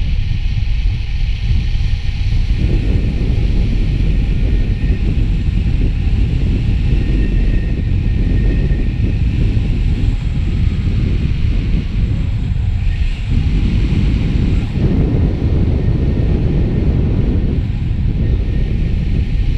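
Airflow rushing over the camera microphone during paramotor flight, a heavy low rumble that swells and eases in gusts.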